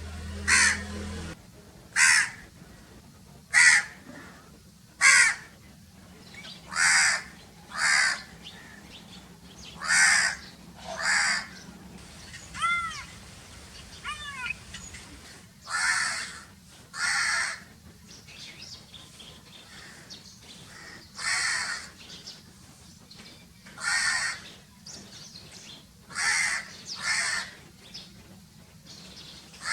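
Crows cawing: a long run of harsh caws, one every second or so. A few short arched notes come in the middle.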